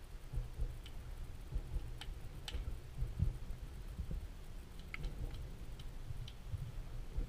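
Underwater ambience picked up through a camera's waterproof housing: an uneven low rumble with soft thuds, and several faint, scattered clicks.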